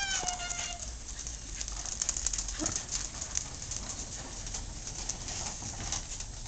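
Plastic tricycle wheels rolling over asphalt, a continuous scattered rattle and crackle. A brief high-pitched call, falling slightly, sounds at the very start.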